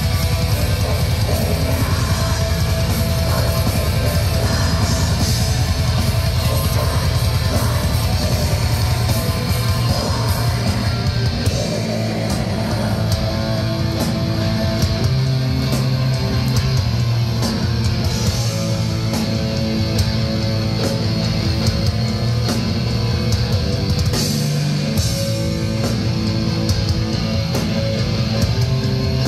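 Atmospheric black metal band playing live: distorted guitars over fast, dense drumming, easing about twelve seconds in into slower, held guitar chords.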